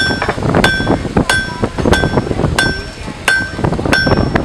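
Blacksmith's hammer striking metal on an anvil at a steady pace, about three blows every two seconds. Each blow leaves a bright metallic ring.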